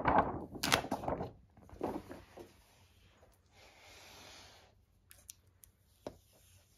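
Paper screen wrap rustling and crinkling as it is lifted off an iMac's display, loudest in the first second or so, with one sharp click. Then quieter rubbing and a few small clicks as a fingernail picks at the clear protective film on the computer's edge.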